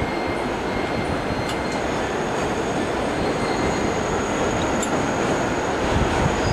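Subway train running on an elevated steel track, a loud steady rumble of wheels with thin high wheel squeal over it and a couple of sharp clicks.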